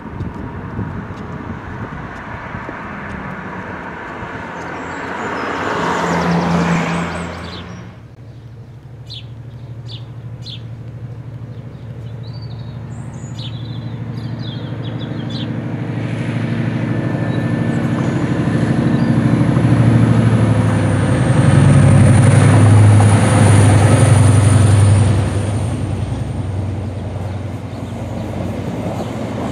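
A train running away from the microphone, its sound cutting off sharply about eight seconds in. Then birds chirp briefly before an Irish Rail 201 class diesel locomotive approaches and passes with a steady engine drone and a thin high whine, loudest about two-thirds through, followed by the rumble of its coaches rolling by.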